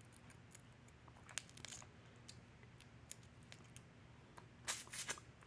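Sparse small clicks and crunches of shell-on seafood being eaten, crab and shrimp shells cracking and chewing, with a short cluster of louder crackles near the end.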